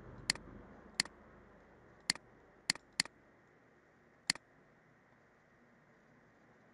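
Computer mouse button clicking six times over about four seconds, each a sharp click with a lighter release click just after it, two of them close together like a quick double click.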